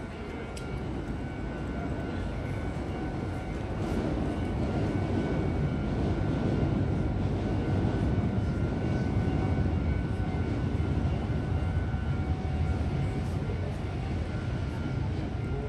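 A train passing: a low rumble that builds over several seconds, is loudest about halfway through and eases off near the end.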